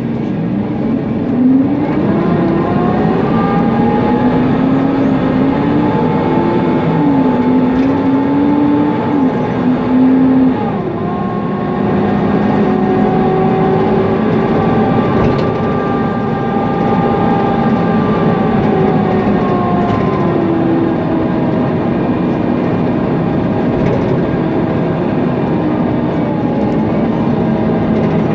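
Mercedes-Benz Conecto NGT city bus with its OM 936 G natural-gas engine and ZF Ecolife automatic gearbox, pulling away: the engine and drivetrain whine rises in pitch, drops suddenly at a gear change about ten seconds in, then runs on at a steady, slowly changing pitch.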